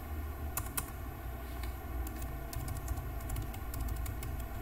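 Typing on a computer keyboard: irregular keystroke clicks at an uneven pace, over a low steady background hum.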